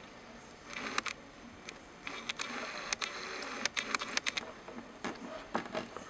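Hands handling a tablet: scattered light clicks and rustling in short bursts, about a second in and again from about two to four and a half seconds in.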